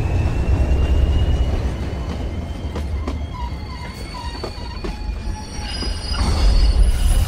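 Passenger train hauled by a diesel locomotive rolling along the track: a heavy low rumble with a thin, high wheel squeal and scattered clanks from the wheels and couplings. It grows louder again near the end.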